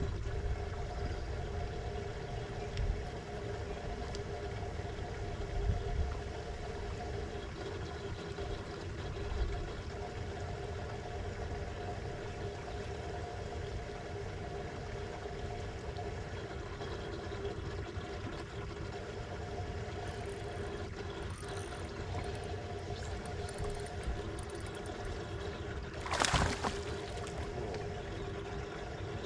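Bow-mounted electric trolling motor humming steadily, with water lapping and trickling against the boat's hull and a few soft knocks. About 26 seconds in comes one brief, sharp rush of noise.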